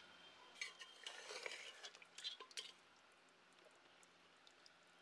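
Faint clinks and scrapes of a steel ladle stirring through mutton gravy in a pressure cooker, for about two seconds from about half a second in, then near quiet.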